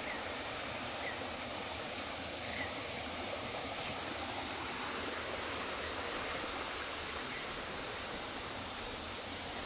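Steady rush of flowing stream water, with a thin, steady high-pitched tone above it.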